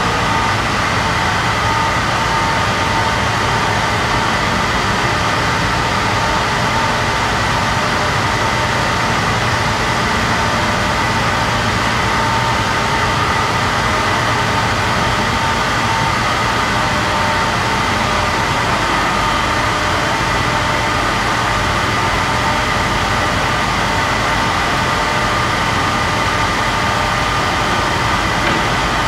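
Steady, loud drone of olive oil mill machinery running, with a few steady whining tones over it.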